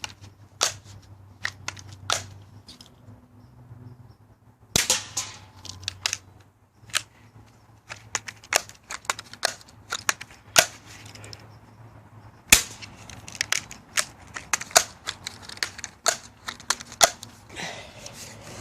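BB gun being fired over and over: a long, irregular string of sharp cracks and clicks, a few at first, then coming thick and fast through the second half, the loudest about halfway through.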